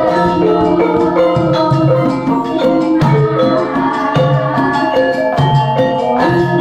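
Javanese gamelan ensemble playing: bronze saron metallophones and bonang gong-chimes ringing in a dense, even stream of struck notes over kendang drum beats.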